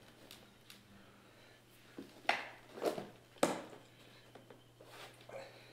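Plastic clicks and knocks as hands press a new lower grille into a Chevy Traverse bumper cover, seating its clips. About four sharp clicks come close together in the middle, over a faint steady low hum.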